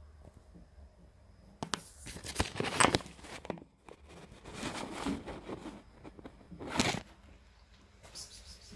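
Several short bursts of rustling and scraping, the loudest about three seconds in and another near seven seconds: a camera phone being handled and propped at the tub's edge.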